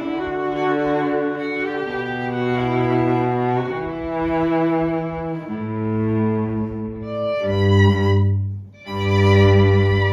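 String trio of two violins and cello playing with the bow: held notes over a sustained cello line, the chord changing about every two seconds. About eight and a half seconds in the sound drops away briefly, then all the strings come back louder.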